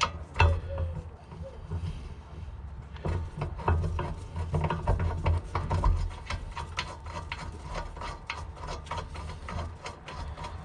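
Irregular clicking, knocking and scraping of hand tools and metal parts being worked, thickening into rapid clicks about three seconds in.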